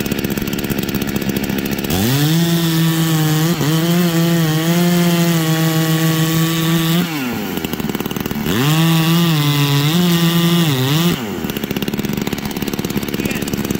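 G466 two-stroke chainsaw idling, then opened to full throttle and cutting into a log for about five seconds, its revs wavering under load, before dropping back to idle. It revs up again for a couple of seconds and returns to idle. These are test runs while its carburetor is being tuned.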